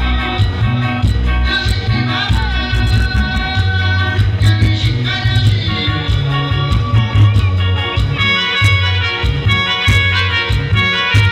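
Loud dance music with a steady, repeating bass line and a singing voice over the instruments.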